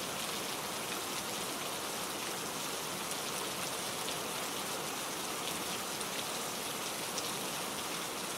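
Steady rain falling, a dense even hiss of drops with scattered fine patters of individual drops.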